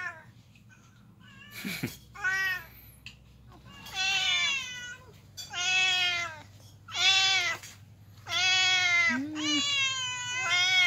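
Hungry domestic cats meowing over and over, about six long, loud meows, one after another a second or so apart. There is a short knock about two seconds in.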